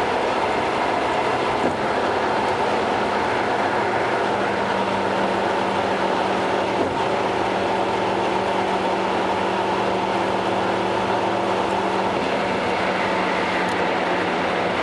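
Steady road and engine noise of a car driving at highway speed, with a low hum running through it, sped up to double speed.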